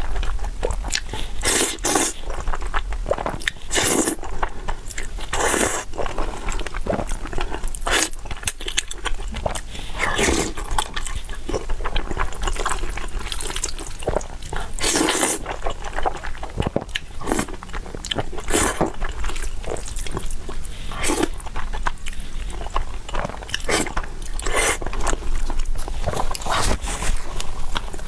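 Close-miked eating: a person biting, chewing and making wet mouth sounds, with many short crunchy clicks and a few longer smeared slurping noises.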